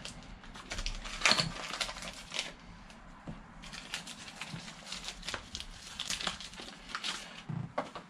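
Small cardboard box of motorcycle brake pads being torn open and its packaging handled: irregular crinkling, tearing and rustling, busiest in the first couple of seconds.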